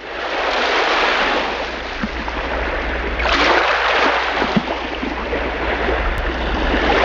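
Sea surf washing up the beach over wet sand and drawing back, a rushing wash that swells as each wave comes in, most strongly about three seconds in.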